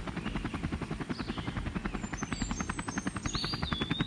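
Playskool Heroes Dino Tracker toy helicopter's plastic rotor mechanism spinning as its handle is pressed: a rapid, even clicking like a rotor chop. Thin high whistling tones glide in the second half.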